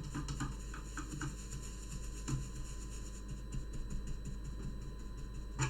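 Light, irregular scuffs and taps of a paper towel being pressed and rubbed on a circuit board to soak up solder flux, over a steady low mains hum.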